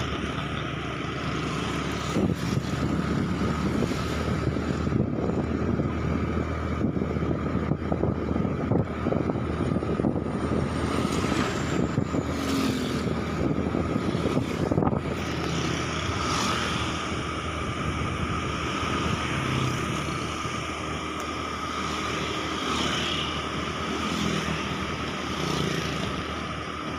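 Riding on a motorcycle: the engine running and road noise under gusty wind buffeting the microphone, with a thin steady whine over it.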